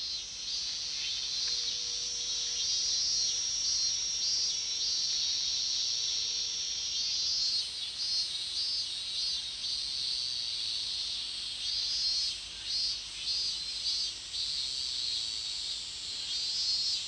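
Cicadas shrilling in a steady high-pitched chorus with a pulsing beat; about halfway through, a second, higher-pitched insect call joins in and holds.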